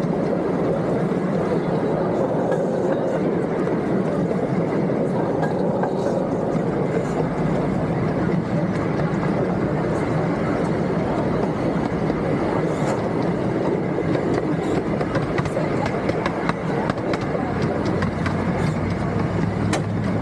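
Hermann Park miniature train's passenger cars rolling along the track, a steady rumble of wheels on rail with faint scattered clicks, heard from aboard an open car.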